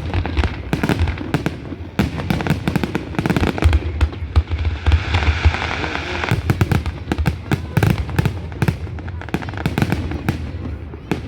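Fireworks going off in quick succession: a dense run of bangs and crackles, with a hissing stretch around the middle.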